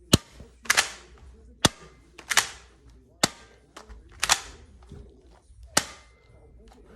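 A series of about seven sharp, gunshot-like snaps, irregularly spaced, a few of them doubled, as a toy pistol is shown off.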